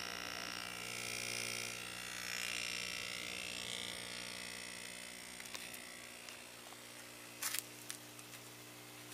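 An 18-watt linear diaphragm air pump running with a faint, steady electric hum, working again after a diaphragm repair. There are a couple of sharp clicks about seven and a half seconds in.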